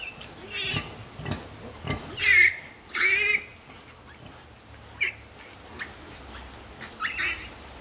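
Piglets squealing while suckling from a sow: three loud, wavering squeals in the first few seconds, then a couple of short, fainter squeaks near the end.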